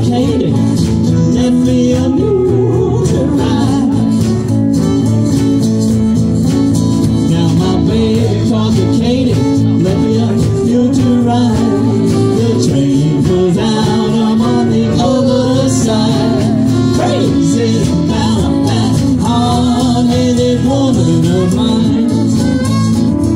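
Live acoustic string band playing steadily: guitars over an upright bass.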